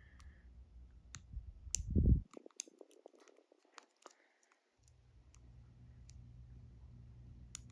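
Small, irregular metallic clicks and ticks of a lock pick and tension tool working inside a dimple lock's keyway, feeling for pins. There is a soft low thump about two seconds in.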